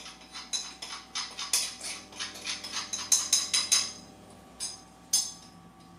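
Spices being added to a saucepan by hand: a quick run of sharp clicks and knocks, several a second, for about four seconds, then two single knocks near the end.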